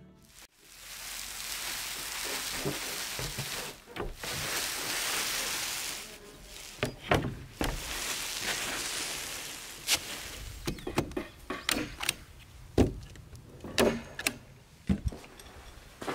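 Roof-building work sounds: a steady rushing noise for the first few seconds, then a string of irregular sharp knocks and clicks as roofing underlayment is unrolled and handled on a deck of wooden roof boards.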